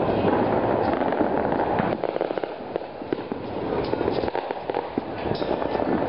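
New Year's fireworks and firecrackers going off in great numbers, with many sharp bangs overlapping into a continuous crackle and rumble.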